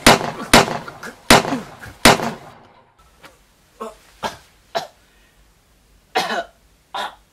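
Four loud gunshot bangs about two-thirds of a second apart, each trailing off briefly, then, after a short gap, a man's short coughs and groans in a few separate bursts.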